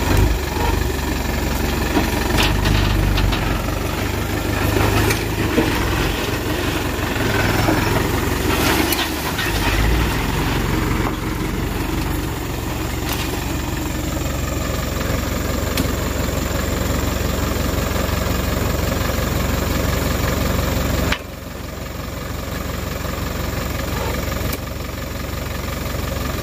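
Dump truck engine idling steadily, with a few sharp knocks over it in the first half. The hum drops suddenly in level about twenty seconds in.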